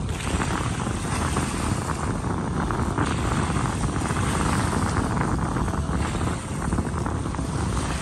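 Wind buffeting the microphone over choppy sea, a steady rumbling rush with a brief dip a little past six seconds.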